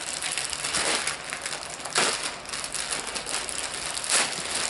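Clear plastic packaging crinkling and rustling as a tote bag is pulled out of it, with louder crackles about two seconds in and again near the end.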